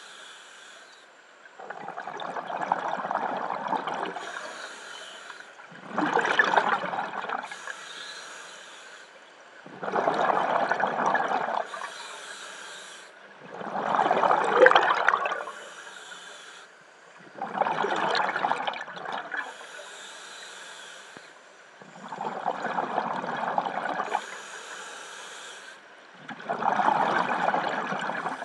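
Scuba diver breathing through a regulator underwater: a short high hiss on each inhale, then a louder burst of exhaust bubbles lasting a second or two. The cycle repeats about every four seconds, seven breaths in all.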